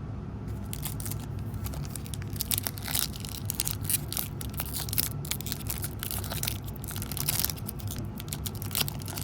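Trading card pack wrapper being crinkled and torn open, an irregular run of crackles and rips, over a steady low hum.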